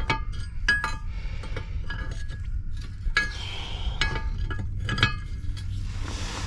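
Irregular metal-on-metal clinks with short ringing, from tools working the propeller nut and tab washer on a boat's propeller shaft, over a steady low hum.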